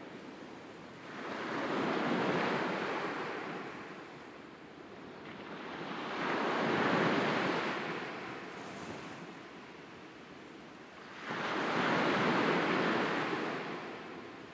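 Sea waves washing onto a shore: three waves, each swelling and fading over several seconds, the last arriving more suddenly.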